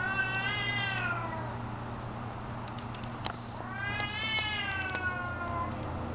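Domestic cats yowling in an aggressive standoff: two long drawn-out caterwauls, each rising and then falling in pitch. The first dies away about a second in, and the second starts near the middle.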